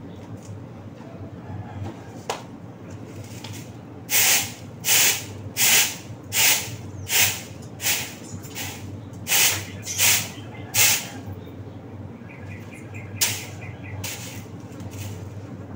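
A broom sweeping the yard floor: about ten brisk, hissing strokes in a steady rhythm, roughly one and a half a second, then a pause and two more strokes.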